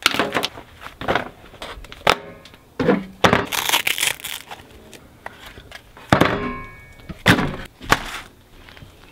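Sanding gear set down piece by piece on a rusty steel workbench: a series of separate clunks and clatters as respirators, a plastic-wrapped coverall and electric sanders land on the metal top. Around the middle comes a longer rustling rip as a hook-and-loop sanding disc is handled and pressed onto a random orbital sander's pad.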